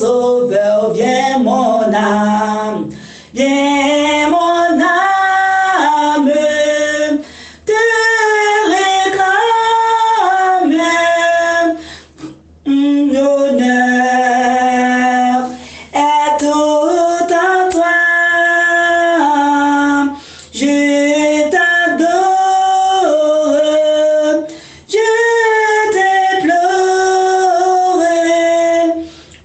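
A woman singing a slow hymn, holding long notes in phrases of about four seconds, with short breaks for breath between them.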